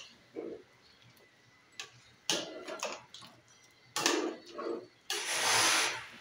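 Metal spoon knocking and scraping against the side of a stainless steel pot while stirring pork pieces in water, in short irregular strokes, with a longer scrape and slosh about five seconds in.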